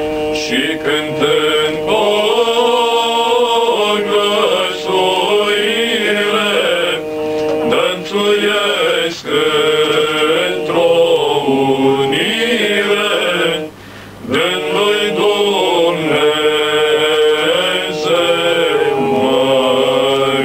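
Male vocal group singing a Romanian colindă (Christmas carol) in several voices, with a steady held note beneath the moving melody; the singing breaks off briefly about fourteen seconds in.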